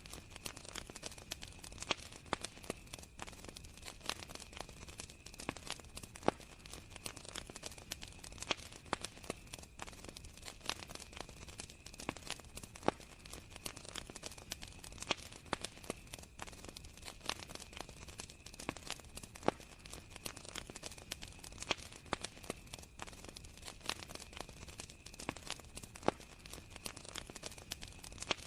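Campfire crackling, with irregular sharp pops and snaps, over a steady high continuous chirring of crickets.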